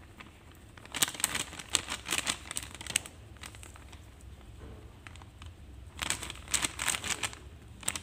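Crinkling, rustling handling noise in two bouts of about two seconds each, while cornflour is added to raw cut potato strips in a glass bowl.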